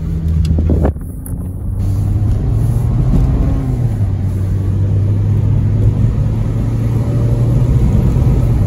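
2002 Honda Civic coupe's four-cylinder engine heard from inside the cabin while driving. It eases off briefly about a second in, then pulls steadily, with tyre and road noise underneath.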